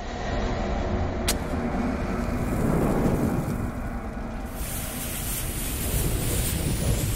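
Intro sound effect for an animated bomb logo: a steady low rumble with a fiery hiss, a sharp click about a second in, and a brighter sizzling hiss joining about halfway through as the fuse burns.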